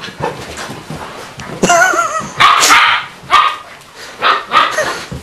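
Dog barking and yipping in rough play: a string of about five sharp barks, one of them a wavering, drawn-out yelp.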